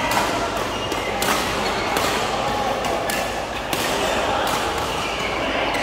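Badminton rackets striking shuttlecocks during rallies on several courts, sharp pops about once a second, over the chatter of players.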